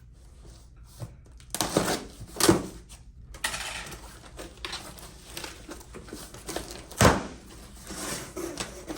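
A shipping package being opened by hand: irregular rustling and tearing of the packaging, with a sharp knock about seven seconds in.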